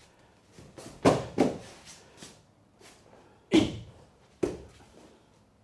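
Several sudden thuds and slaps on tatami mats as one partner is thrown down in a stick technique. The two loudest come about a second in and about three and a half seconds in.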